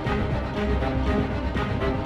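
Background music: a theme-like soundtrack with held notes over a heavy low bass.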